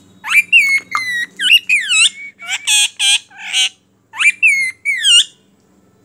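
Pet ring-necked parakeet squawking in a quick run of loud, harsh calls that swoop up and down in pitch, with a short break about four seconds in.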